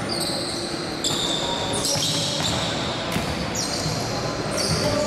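Basketball play on a hardwood gym floor: sneakers squeaking in short, high-pitched chirps several times, and the ball bouncing, over the echoing hum of a large sports hall.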